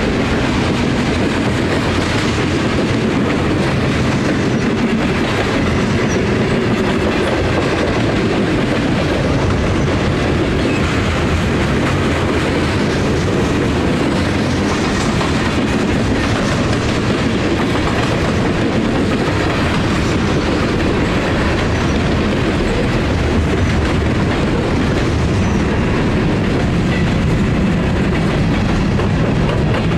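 Freight train cars, mostly covered hoppers, rolling past close by: steel wheels running on the rails in a loud, steady rumble.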